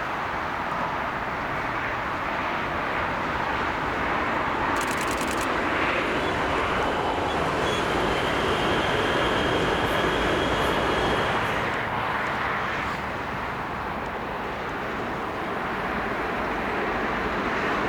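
A train running past, a steady rushing noise that swells in the middle and fades toward the end, with a faint high whine while it is loudest.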